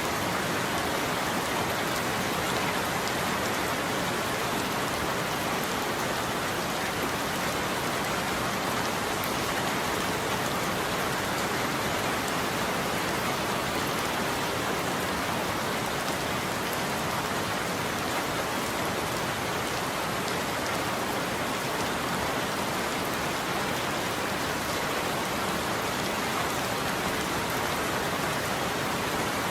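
Steady heavy rain falling on a roof, an even hiss of drops with no thunder.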